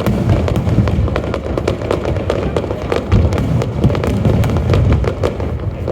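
Aerial fireworks going off in quick succession: many sharp crackling reports over a continuous low rumble of bursts.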